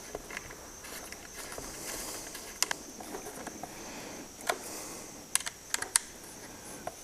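Small machine screws being tightened into the polymer bullpup stock with an assembly wrench: quiet handling and turning noise with several sharp clicks of metal on the screws and plastic, including three close together about five and a half to six seconds in.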